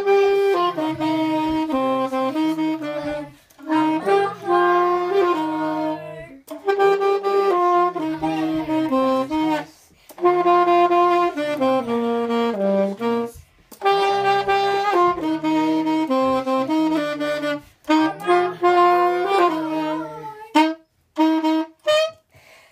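Alto saxophone playing a melody in phrases of a few seconds each, with short breaks for breath between them.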